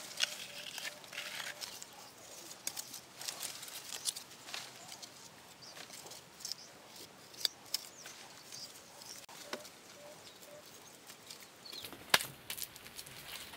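Wet mud being smeared and scraped onto a wall with a flat hand-held scraper, in short irregular scraping strokes, with one sharp slap or knock about twelve seconds in.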